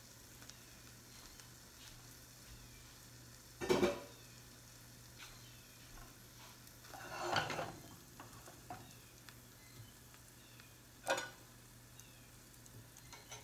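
Faint steady sizzle of a buttered Reuben sandwich frying in a skillet, with three louder clatters of cookware and tongs: the loudest about four seconds in, a longer scrape a little past halfway, and a short clack near the end.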